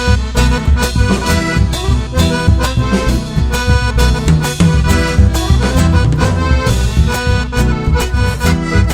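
Chamamé band playing an instrumental passage, with accordion leading the melody over a bass line and a steady dance beat.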